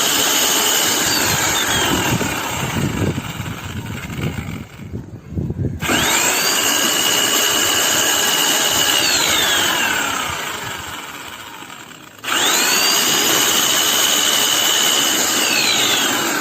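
Handheld electric drill mixer stirring a bucket of mix in short bursts. The motor is running at the start and winds down after a few seconds. It then starts twice more, about 6 and 12 seconds in, each time whining up to speed, running steadily for a few seconds and winding down again.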